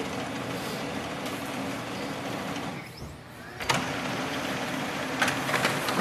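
Lexmark B2236DW laser printer running a print job, a steady mechanical whir from its motor and paper feed. It drops off briefly about three seconds in, then starts again suddenly, with a few clicks near the end as the page feeds through.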